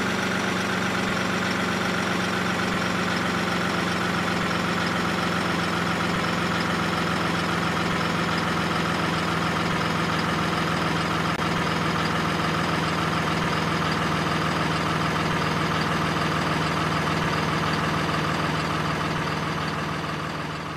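Truck engine sound effect running steadily at one constant pitch, an even hum with no revving, fading out near the end.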